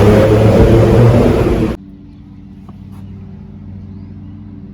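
Car on the move with loud wind and road rumble. About two seconds in it cuts off suddenly to a much quieter, steady low engine hum.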